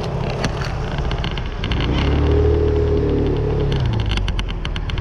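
Motorbike engine running as the bike rides off, its pitch climbing about two seconds in and easing off near the end. A quick run of clicks or rattles sounds near the end.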